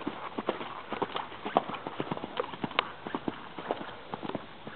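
Hoofbeats of a horse cantering on a dirt arena, a quick, uneven run of short hoof strikes.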